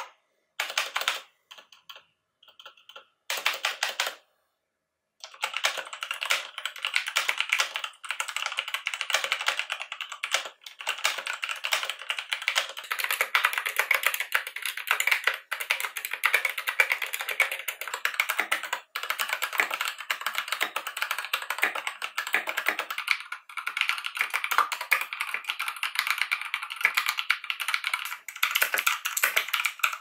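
Typing on compact mechanical keyboards, one after another: the Motospeed CK62 with Outemu red switches, the Geek GK61 with optical Gateron red switches, and the Royal Kludge RK71 with RK blue switches. A few scattered keystrokes and a short pause give way, about five seconds in, to steady fast typing.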